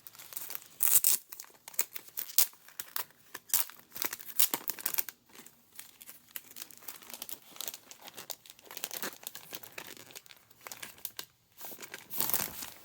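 Packaging being handled and torn open by hand: irregular crinkling and tearing crackles, busiest in the first few seconds, sparser in the middle, with a louder rustle near the end.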